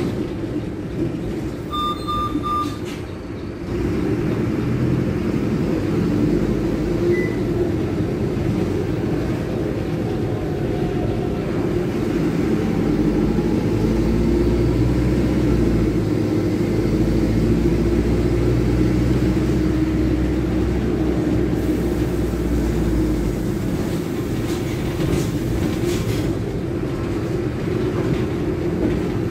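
Mercedes-Benz OM-924 LA four-cylinder turbodiesel of a rear-engined city bus with an open "escape libre" exhaust, heard from inside the cabin while the bus drives. The engine pulls harder and louder for about ten seconds in the middle. Three short electronic beeps sound about two seconds in.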